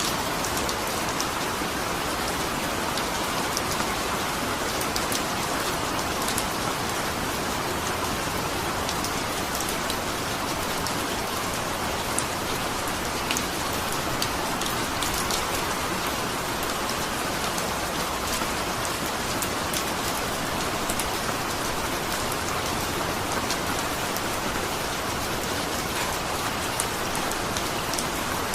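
Steady rain falling, a dense even hiss with many separate drops ticking close by.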